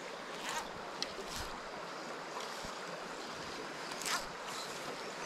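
A small rocky stream running steadily over stones, with a few brief swishes over the top, the loudest about four seconds in.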